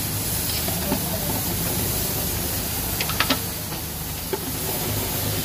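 A large knife scraping and clicking against a hot metal cooking pan as cooked lamb pieces are pushed out onto a plate, with a quick cluster of sharp clicks about three seconds in, over a steady hiss.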